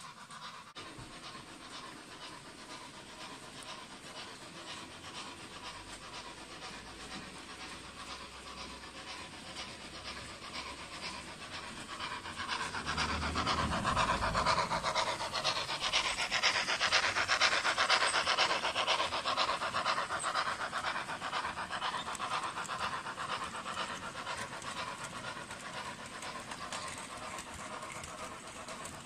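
Model goods train running past on the layout's track, its wheels rattling rapidly over the rails. It grows louder about twelve seconds in as the wagons pass close by, then fades as they move on.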